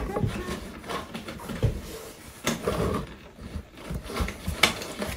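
Handling noises from a toy remote-control car's controller and packaging: a few sharp clicks and knocks spread through, over low rustling.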